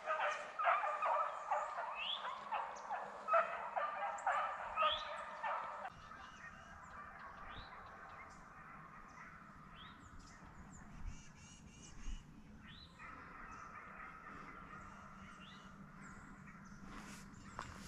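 Several deer hounds baying together while running a freshly jumped deer, their calls overlapping with short rising cries. About six seconds in the level drops suddenly, and the hounds are then heard faintly and far off.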